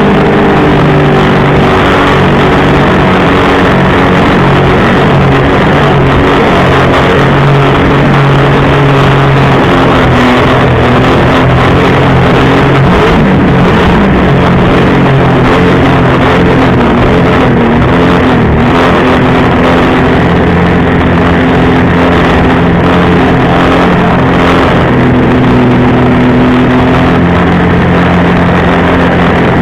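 Jet ski engine running steadily at speed. Its pitch wavers and dips around the middle before settling again, over a constant rush of noise.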